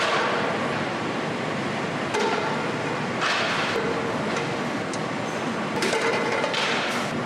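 Steady factory machinery noise with several short metallic clanks and clatters, about two, three and six to seven seconds in.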